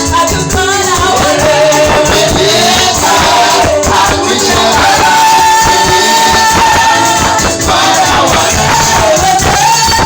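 Loud church praise music: a voice singing a wavering melody line, held long in the middle, over a band with dense percussion.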